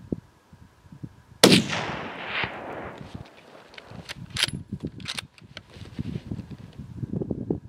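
A single hunting-rifle shot about one and a half seconds in, its echo rolling off the surrounding hills for about a second and a half, followed by several sharp clicks and rustling as the rifle is handled.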